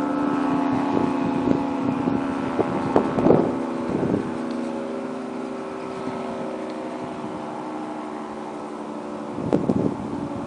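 Federal Signal 3T22 three-tone electromechanical siren sounding its chord, slowly falling in pitch and getting quieter. Wind buffets the microphone about three seconds in and again near the end.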